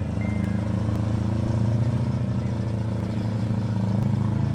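Engines of demolition derby mini vans and mini trucks running in the arena, a steady low drone without clear impacts.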